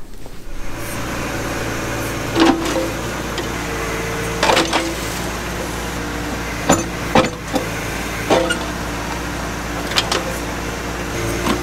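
John Deere 1025R compact tractor's diesel engine running under load as its 260 backhoe digs soil, with a hydraulic whine that shifts in pitch as the controls are worked. About seven sharp metallic clanks come every second or two as the bucket and its linkage work the ground.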